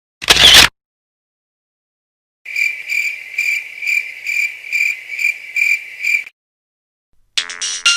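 A short, very loud burst of noise, then after a pause a cricket-chirp sound effect: evenly pulsed high chirps about two a second for nearly four seconds. Near the end a ringtone-like electronic melody begins.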